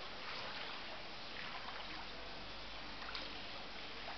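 Floodwater trickling and flowing, a steady watery hiss.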